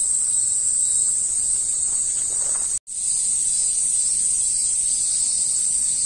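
Cicadas shrilling in chorus, a steady high-pitched buzz. It cuts out for an instant nearly three seconds in, then carries on unchanged.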